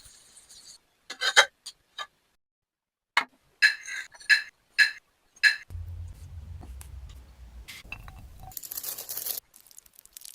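A series of about seven sharp clinks of dishes or utensils against glass, then a low hum and a brief scraping rustle near the end.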